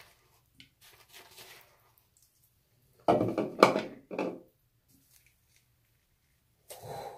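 Shaving lather being scooped out of a lather bowl: faint scraping and rubbing, then a cluster of louder knocks and scrapes against the bowl about three seconds in, and a shorter one near the end.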